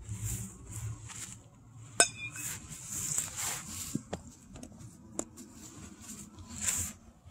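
A metal baseball bat hits a pitched ball about two seconds in with one sharp ping that rings briefly. A few fainter ticks and some rustling noise follow.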